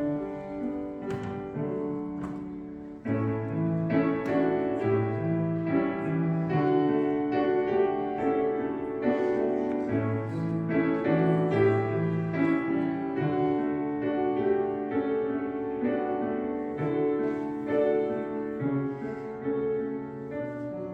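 Instrumental keyboard music: sustained chords under a melody, with a short break about three seconds in before the next phrase begins.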